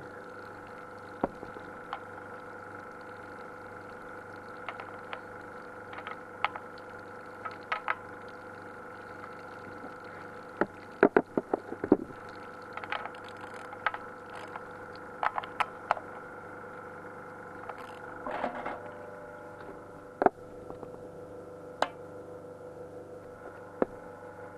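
Steady hum of a pressure washer pumping water into a hyperbaric test chamber to raise the pressure. Over it come scattered sharp clicks and knocks, with a quick run of loud ones about eleven seconds in.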